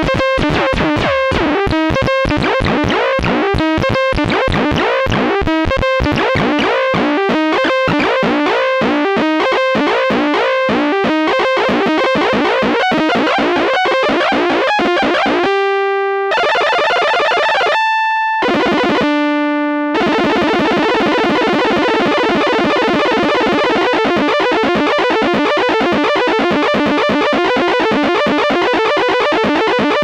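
Behringer System 100 analog modular synthesizer playing a frequency-modulated patch with a weird, clangorous tone. For about the first half it plays a rapid run of short notes. A few held tones with brief silences between them follow, and then a continuous dense drone with shifting overtones.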